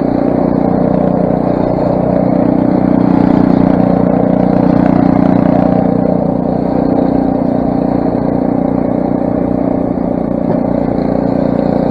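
Craftsman snowblower's 6 hp single-cylinder Briggs & Stratton engine running steadily, a little louder in the middle.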